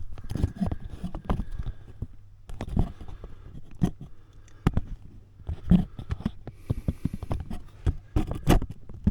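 Irregular knocks, clicks and scraping of hands and a handheld camera moving about under a car's dashboard, over a steady low hum.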